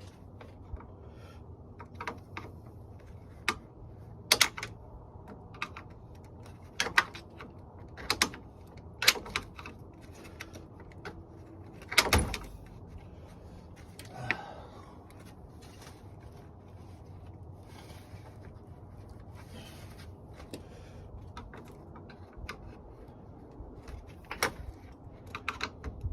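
Scattered sharp clicks and knocks of tools and parts being handled during work on a car's front end, about a dozen in all, the loudest about twelve seconds in, over a low steady hum.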